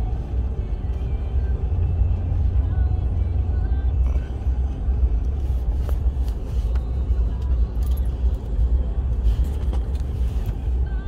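Car driving on a snow-covered road, heard from inside the cabin: a steady low drone of engine and tyres, with scattered light clicks.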